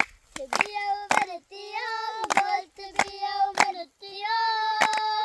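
A high voice singing a folk-style song in long held notes, with hand claps keeping a steady beat a little under two a second.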